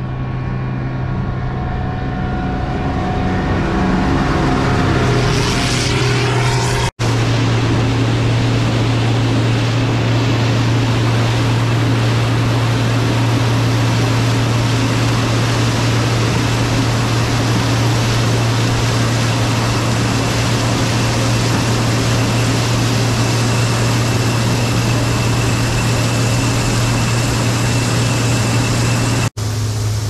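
Gleaner combine harvester running. For the first several seconds it approaches and grows louder, its engine pitch sliding upward. After an abrupt cut it runs steadily at close range with a strong low hum while harvesting corn.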